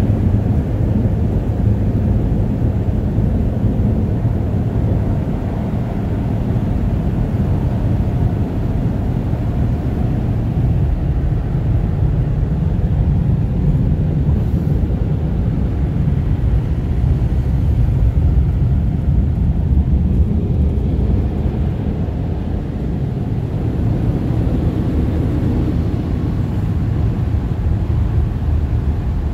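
Touchless car wash's overhead air dryers blowing on a van, a steady low rumble heard from inside the van's cabin.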